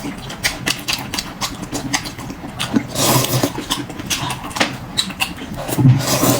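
A person eating with the mouth close to the microphone: chewing with many quick, sharp mouth clicks and smacks, with a couple of fuller bursts of sound about three seconds in and near the end.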